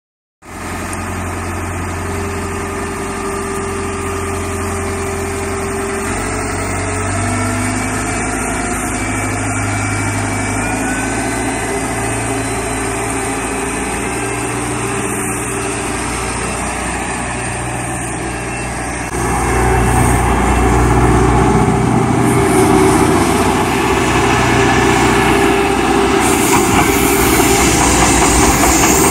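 Tennant 830-II street sweeper running as it drives, a steady engine note with faint shifting tones. About two-thirds of the way through it becomes louder and noisier, with a rushing hiss over the engine.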